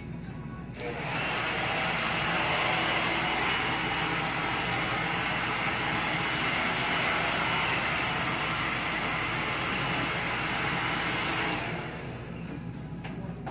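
Hand-held electric hair dryer blowing air: it switches on about a second in, runs at a steady pitch, and switches off about a second and a half before the end.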